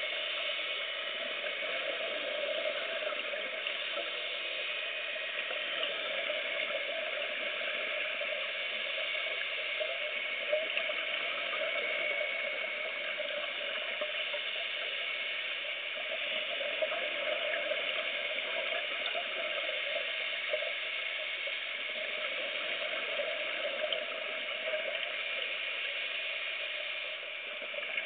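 Underwater ambience heard through a camera's waterproof housing: a steady crackling hiss with no clear breaths or separate events.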